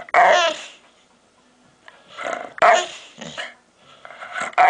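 A pet dog making odd vocal noises in three short bouts: one near the start, a pair around the middle and another near the end. The pitch bends and often falls.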